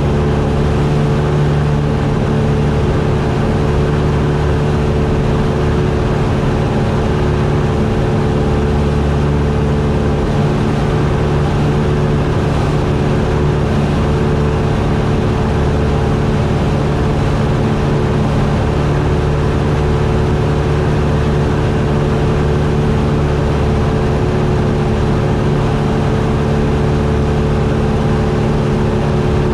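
Cessna 172's piston engine and propeller running with a steady drone at an unchanging power setting in flight.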